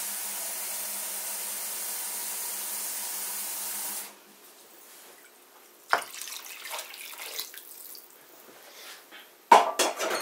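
Kitchen tap running steadily into a pot, shut off suddenly about four seconds in. Then a knock and water poured from the pot into the soup pot, with a loud clatter of cookware near the end.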